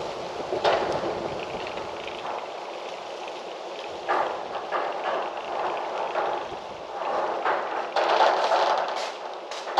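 Gusty wind blowing, swelling and easing, with a rushing, rustling sound and a few short sharp rattles.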